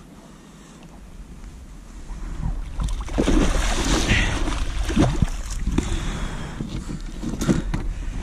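Water splashing as a hooked fish thrashes at the surface and is scooped into a landing net. The splashing starts about three seconds in and runs on in loud bouts, with sharp splashes or knocks near the middle and near the end.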